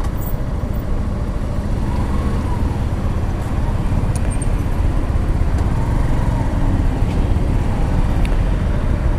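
Suzuki Gixxer's single-cylinder engine running at low revs as the bike slows almost to a stop, with city traffic around it. The sound is a steady low rumble.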